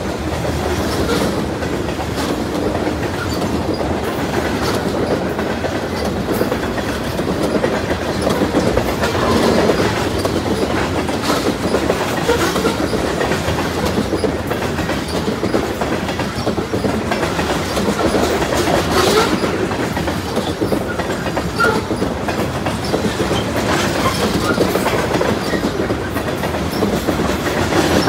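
Freight train of covered hopper cars rolling past: a steady rumble and rattle of steel wheels on the rails, with clickety-clack as the wheels cross rail joints.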